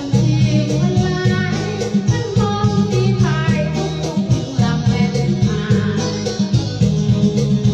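Music with singing over a strong bass beat and plucked strings.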